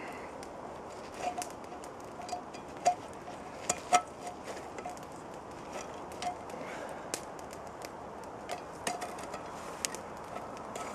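Scattered sharp clicks and a few louder knocks, about three and four seconds in, as a wooden stick is worked into the metal handle fitting of a coated aluminium camp frying pan.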